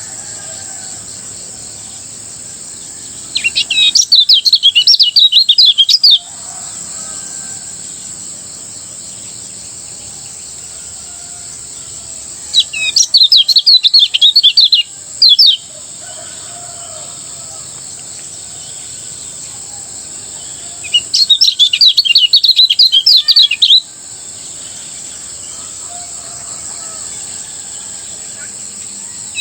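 Kecial kuning (lemon-bellied white-eye) singing in loud bursts of fast, high, tumbling chirps, the 'ngejos' song style. Three bursts of about three seconds each, the first a few seconds in, the second about halfway through and the third near the end, with another starting at the very end. Between the bursts there is a steady high hiss and faint softer chirping.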